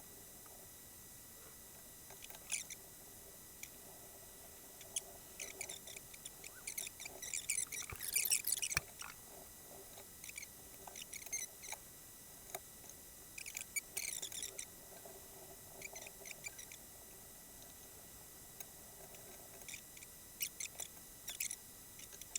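Small plastic clicks, taps and scrapes from handling and fitting together the opened parts of a Corsair computer mouse, in irregular clusters, busiest about eight seconds in.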